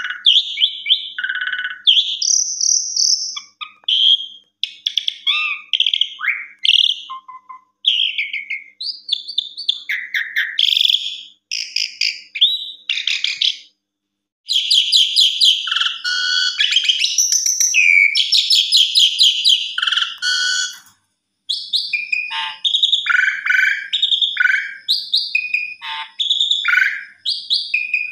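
Asian pied starling (jalak suren) singing a long, varied song of whistles, chirps and fast chattering trills, broken by short pauses, one about halfway through and another a few seconds later.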